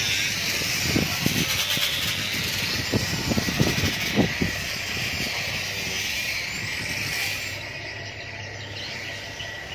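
A boat engine running steadily under a broad hiss of water and wind, with a few short knocks in the first half.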